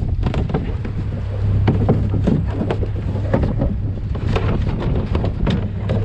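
Wheel loader's engine running steadily, with wind on the microphone and scattered knocks and clatter as calves are shifted against the steel bucket.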